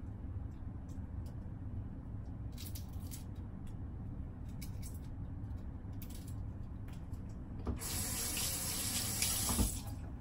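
Kitchen tap running for about two seconds near the end, as the peeled garlic cloves are rinsed. Before that, only faint scattered clicks over a low steady hum.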